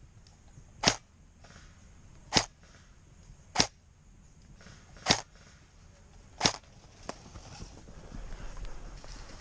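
Airsoft gun firing single shots close by: five sharp snaps, about one every second and a half.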